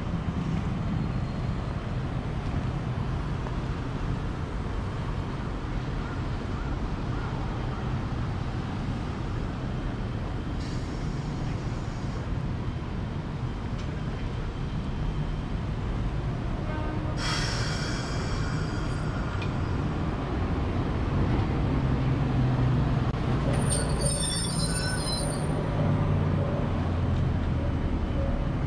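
City street tram and traffic: a steady low rumble, a brief squeal of the tram's steel wheels a little past halfway, then a louder low hum near the end as the tram stands at the platform, with a short high tone.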